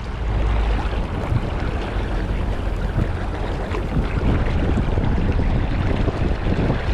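Steady rush of fast river current, with a low wind rumble on the microphone.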